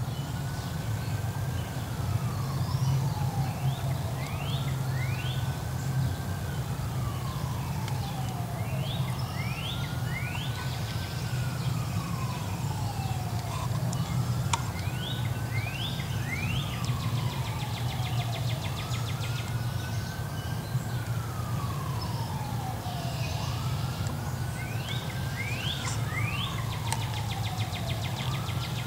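An emergency vehicle siren wailing, its pitch rising and then sliding slowly down, over and over about every four and a half seconds. Short rising bird chirps come in twos and threes over a steady low rumble.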